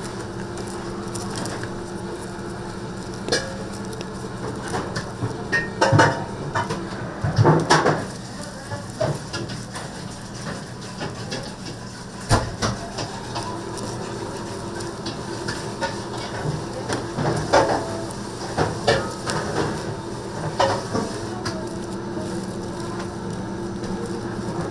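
Bakery kitchen work: scattered knocks and clatter of utensils, pans and trays over a steady machine hum, with busier clattering twice.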